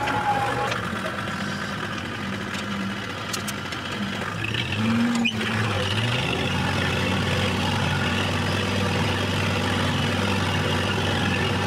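Kubota compact tractor's diesel engine running steadily while pulling a tine cultivator through soil, with the engine note rising briefly about four to five seconds in.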